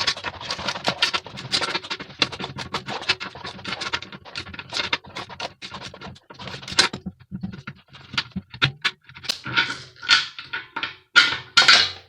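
Hand tools working loose the two fastenings that hold a cement mixer's electric motor on: rapid clicking and scraping at first, then sparser knocks, with a few louder metal scrapes and clatters near the end as the motor comes free.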